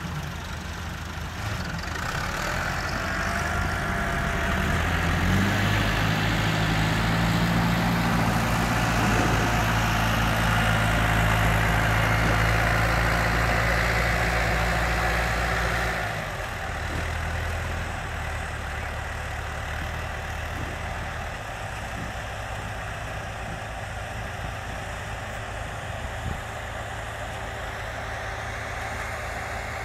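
Diesel farm tractor engines working as the tractors drive over a maize silage pile to pack it down. The engines rev up about five seconds in, run loud, then ease off to a steadier, lower note at about 16 seconds.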